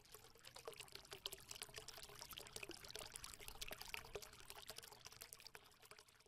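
Faint trickling, pouring water: a dense patter of small clicks over a soft hiss that swells and then fades away near the end.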